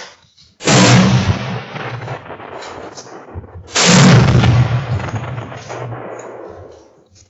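Two rifle shots about three seconds apart, each with a long echoing tail, fired while zeroing the rifle's scope.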